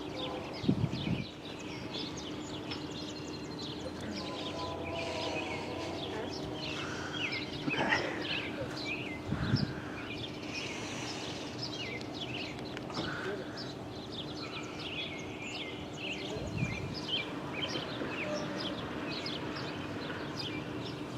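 Small birds chirping and singing over a steady low hum.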